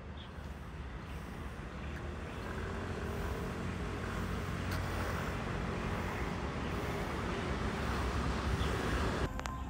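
Steady outdoor rumble like passing road traffic, with a faint engine-like hum in it. It grows slowly louder and cuts off abruptly just before the end.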